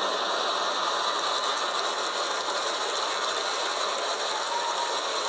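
Live comedy audience applauding, a steady, dense clatter of clapping.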